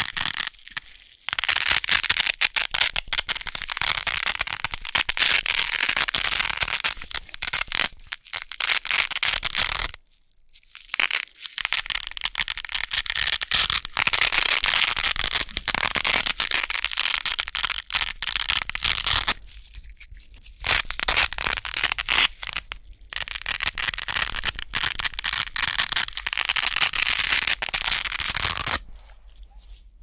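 Wide hook-and-loop (Velcro) strips being pulled apart again and again: a dense, crunchy, crackling rip lasting several seconds at a time, with short pauses between pulls. It stops shortly before the end.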